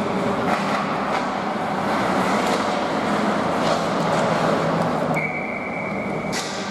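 Ice hockey rink sounds: a steady wash of skates scraping the ice with scattered sharp clacks of sticks and puck. About five seconds in, a steady high tone sounds for about a second, then a sharp clack.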